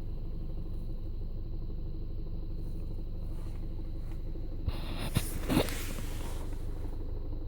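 Skoda Octavia A7's 1.4 TSI engine idling cold with the manual gearbox's clutch pedal released, running with a steady rattling knock from the clutch. This is the clutch rattle at idle that stops when the pedal is pressed, a fault cured by replacing the clutch. A few light knocks come about five seconds in.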